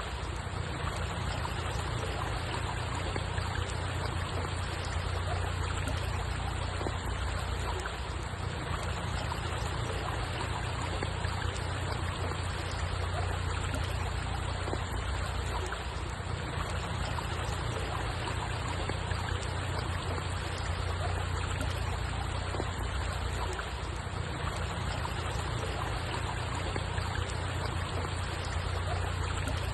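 Steady flowing water: an even, unbroken rush with a strong low rumble underneath and no separate splashes or events.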